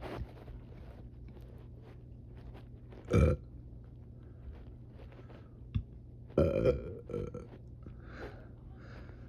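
A person burping: a short, loud burp about three seconds in, then a longer one a few seconds later that trails off into smaller burps.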